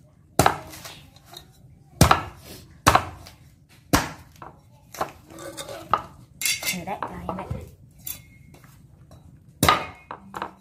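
Cleaver chopping into a green coconut's husk: several sharp, heavy strikes at irregular intervals, four in the first four seconds and one more near the end.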